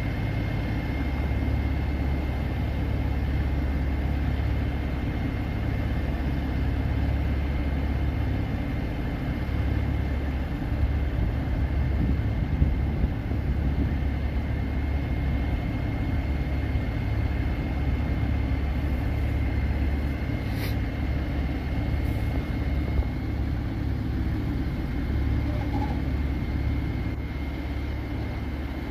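Caterpillar 3126 six-cylinder diesel engine of a Chevrolet C8500 bucket truck running steadily, a deep even hum with a faint steady high whine over it. A single sharp click comes about two-thirds of the way through.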